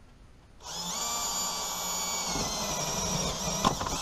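Cordless drill boring a hole through a plastic battery box lid: a steady motor whine that starts under a second in and stops abruptly at the end.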